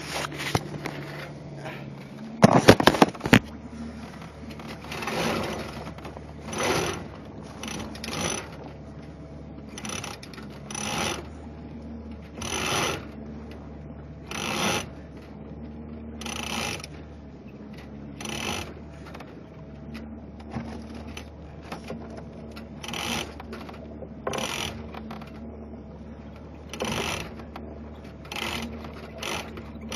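Sailboat mainsail being hoisted on its halyard: rhythmic ratcheting, rasping pulls about every two seconds as the line runs through its blocks, with a burst of loud knocking about two and a half seconds in. A steady low motor hum runs underneath.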